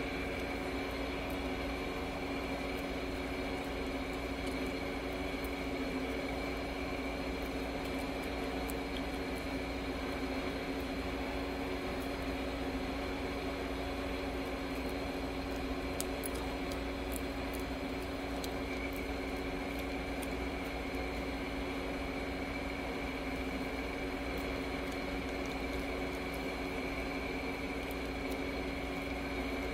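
Steady machine hum with several fixed tones, like an air conditioner or fan running in the room, with faint scattered clicks from a small dog biting and chewing a chicken-wrapped treat stick.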